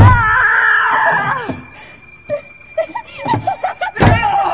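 A sharp thud, then a woman screaming, a wavering cry of about a second and a half. It is followed by a few smaller knocks and another sharp thud near the end.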